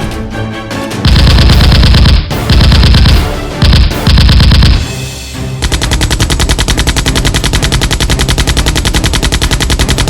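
Automatic gunfire in rapid bursts: four short bursts in the first half, then one long unbroken burst from about five and a half seconds in, with music underneath.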